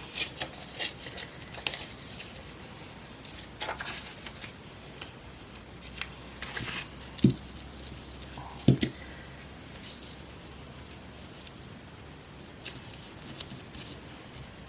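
Scissors snipping through magazine paper, a quick run of cuts in the first few seconds, then only occasional snips and paper rustles, with two dull knocks about seven and nine seconds in.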